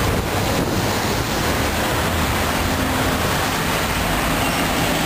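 Steady rush of wind on the microphone over the noise of city street traffic.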